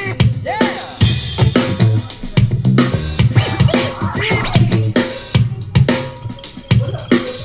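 Music with a drum-kit beat and short swooping scratch-like pitch sweeps, played back through a JBL Clip portable Bluetooth speaker.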